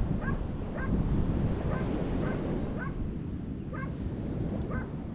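Wind buffeting the microphone over surf, with faint short chirps recurring every second or so.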